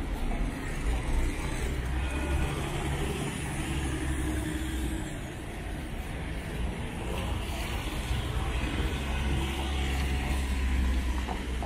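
Street traffic: cars driving past on a wet road, a low engine rumble that swells twice, with a hiss of tyres on the wet surface.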